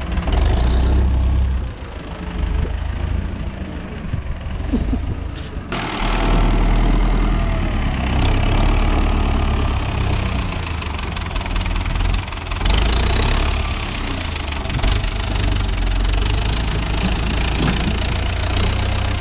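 Farm tractor's diesel engine running with a knocking clatter and a deep rumble, the sound changing abruptly about six seconds in.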